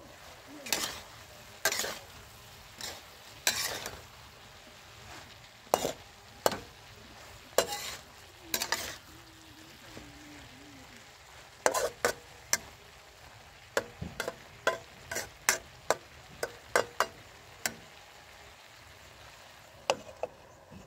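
Metal spatula scraping and clinking against a steel wok as cabbage, onions and sliced pork are stir-fried, over a steady frying sizzle. The glass lid clanks as it is lifted off near the start and set back on near the end.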